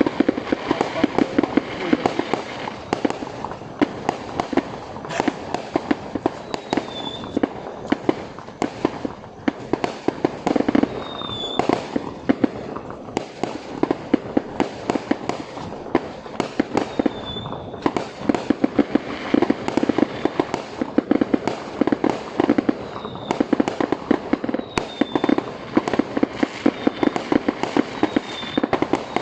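Fireworks display: a dense, continuous barrage of rapid bangs and crackles, with short high chirping tones breaking through now and then.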